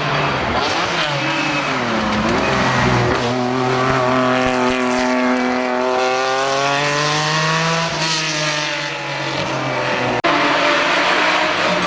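Historic rally car engine driven hard. Its pitch dips about two seconds in, holds high and steady for several seconds, then falls away. An abrupt cut about ten seconds in switches to another stretch of engine noise.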